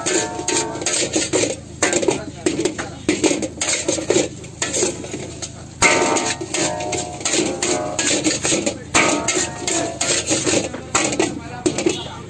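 Long metal spatula scraping and clanking against a steel wok while fried rice is stir-fried and the wok is tossed: a rapid, irregular run of scrapes and knocks, some with a short metallic ring.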